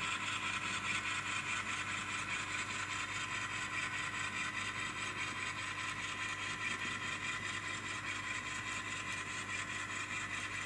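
Diesel engine sound from the ESU LokSound 5 decoder of a Kato N-scale GE P42 model locomotive, played through the model's tiny onboard speaker and running steadily, thin and without bass.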